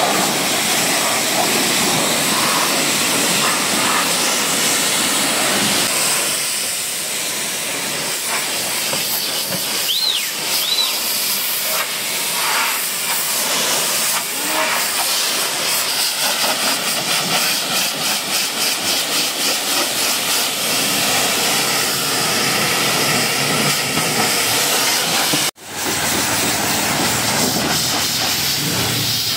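High-pressure washer jet spraying water onto a car's body and windows: a steady, loud hiss. It drops out for an instant about three-quarters of the way through, then resumes.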